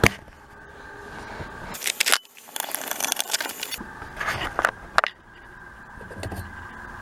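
Handling noises: a few sharp clicks and knocks, with a jingling, scraping rattle for about a second in the middle and a loud click about five seconds in, as gear is moved about and cleared away. The horn does not sound.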